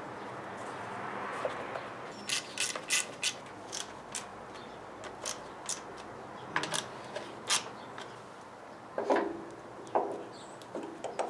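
Scattered sharp clicks and a few duller knocks of hand work on a car engine's timing-belt drive, about a dozen spread over several seconds, over a steady background hiss.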